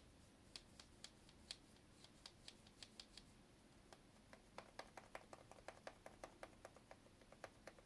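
Freshly greased single-lever mixer tap cartridge worked by hand: faint plastic clicks as its stem is moved back and forth. There are a few clicks a second at first, then they come quicker and fuller from about halfway through.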